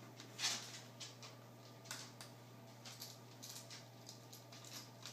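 Small screwdriver working the bezel screws of an Acer Aspire One D255E netbook's screen: scattered light clicks and scratches of metal on the screws and plastic bezel, the sharpest about half a second in, over a faint steady low hum.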